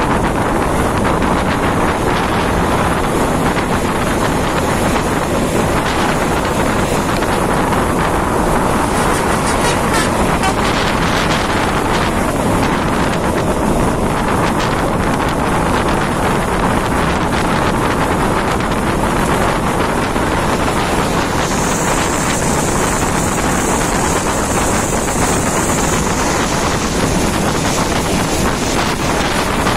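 Steady rush of wind on the phone's microphone at an open window of a moving bus, mixed with the bus's road noise. A thin high hiss joins in for a few seconds about two-thirds of the way through.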